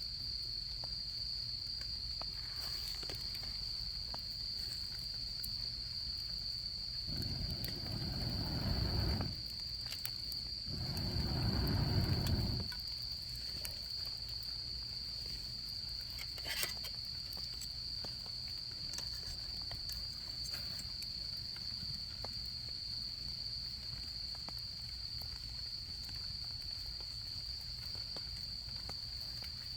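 Autumn insects singing in one continuous high-pitched trill, with scattered faint crackles from a campfire. Two louder low rushing swells come about 7 seconds and 11 seconds in.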